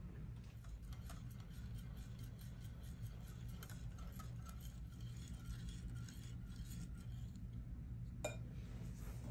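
Stainless steel wire whisk stirring chocolate ganache in a glass bowl, with soft, irregular ticks of the wires against the glass and one sharper clink near the end.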